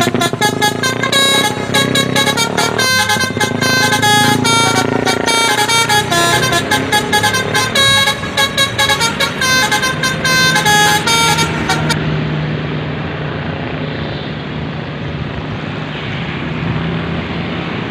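Tour bus telolet horn, a multi-tone musical air horn, playing a quick tune of short stepped notes, then cutting off about twelve seconds in. A bus engine's low steady drone and road noise remain.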